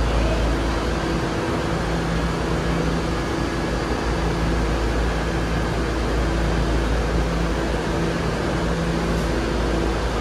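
R68A subway car standing in the station with its doors open, its air conditioning and auxiliary equipment giving a steady hum over a low rumble, with a low drone that drops out briefly now and then.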